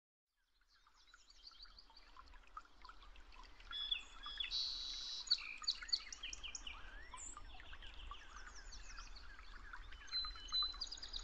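A chorus of many small birds chirping and calling at once, with short, high, overlapping chirps and trills. It fades in about a second in.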